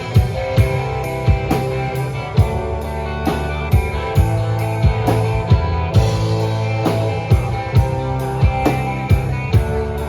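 Rock band playing an instrumental passage without vocals: a drum kit keeps a steady beat of about two hits a second under bass and guitar.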